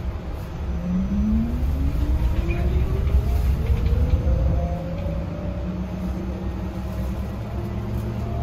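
Inside a Yutong E12 battery-electric city bus: the electric drive's whine rises steadily in pitch for a few seconds as the bus accelerates, then levels off, over a low road rumble.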